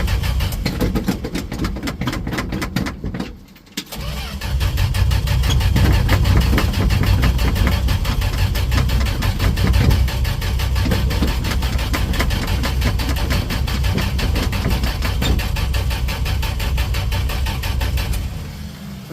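1968 Dodge D100 pickup's engine cranking on the starter without catching: a hard start. The cranking stops briefly about three seconds in, resumes for about fourteen seconds, then dies away near the end.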